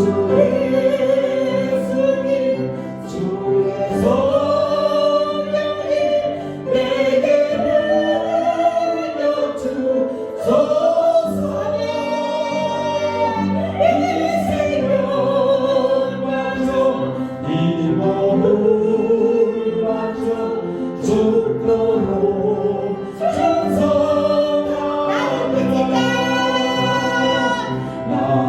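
Group of voices singing a slow Korean worship song over sustained instrumental accompaniment, with long held notes.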